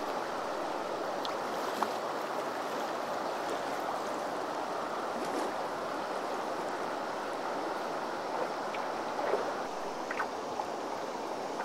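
Yellowstone River current rushing over shallow riffles, a steady even rush of moving water, with a few faint sharp ticks of water mostly near the end.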